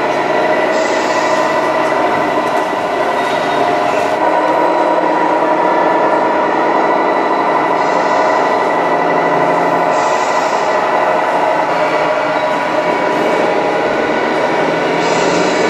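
Radio-controlled model MAN heavy-haul truck driving slowly under load, giving a steady mechanical hum and whine. A few short hisses come about a second in, around the middle, and near the end.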